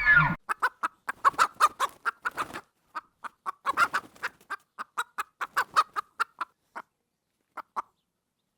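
An animal giving a rapid series of short clucking calls, several a second, thinning out about two-thirds of the way in with a few last calls near the end.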